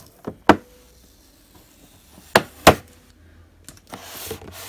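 Fingernails clicking and tapping on a clear plastic packaging box while picking at the sticker tape sealing its lid, four sharp clicks in two pairs. Near the end comes a scratchy rustle of the plastic and sticker being peeled.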